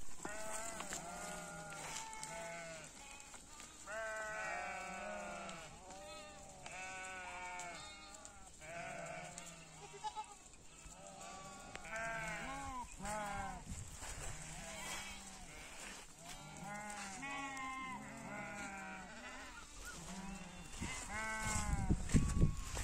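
A mixed flock of sheep and goats bleating constantly, many calls overlapping. A low rumble near the end is the loudest moment.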